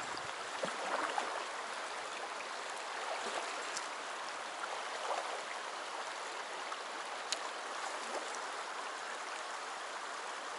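Shallow mountain stream running over a gravel bed, a steady rush of water close by, with one brief tick about seven seconds in.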